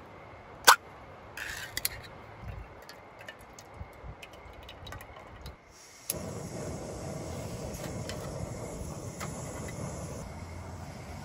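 The pull-tab lid of a soup can cracks open about a second in, with a short scrape as it is peeled back and a few small clicks of handling. About six seconds in, a backpacking canister gas stove lights with a click, and its burner then runs with a steady hiss.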